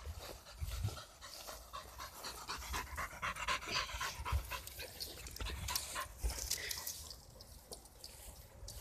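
A Nova Scotia Duck Tolling Retriever panting hard and quickly close to the microphone, winded from running after a ball. The panting is loudest in the middle and fades as the dog moves off near the end.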